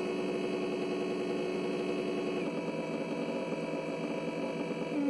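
Electric radiator cooling fan running under a PWM fan control module, giving a steady motor hum and whine. The pitch steps down a little about halfway through and again near the end.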